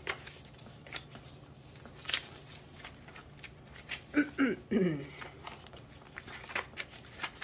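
Pages of a handmade junk journal being turned and handled: light paper rustles and sharp flicks as aged paper pages and inserts are lifted and laid over. A short voice sound with a falling pitch comes about four seconds in.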